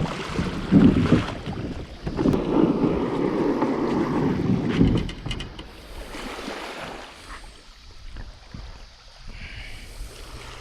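Kayak on the sea, with water sloshing and wind buffeting the microphone. It is louder for about the first five seconds, then quieter.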